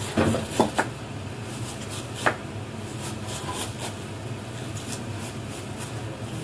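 Kitchen clatter: a few sharp knocks of utensils and dishes being handled at a counter, three quick ones in the first second and another a couple of seconds later, over a steady low hum.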